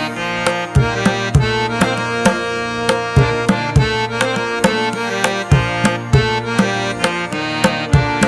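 Instrumental background music: a steady beat of drum strokes over held pitched chords.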